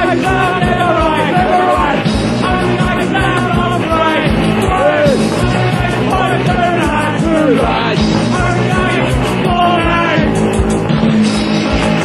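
Punk band playing live: guitar, bass and drums with a steady driving beat, and a sung vocal over the top.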